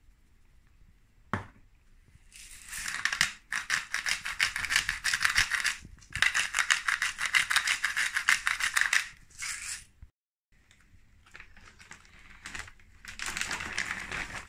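A hand-twisted pepper mill grinding peppercorns in four bursts of rapid crackling clicks. Near the end a plastic bag rustles.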